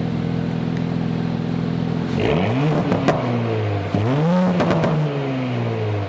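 2018 Audi S4's turbocharged 3.0-litre V6, fitted with an AWE SwitchPath exhaust, idling steadily, then revved twice: a quick rev about two seconds in that drops back, and a second rev a second later that falls slowly back toward idle.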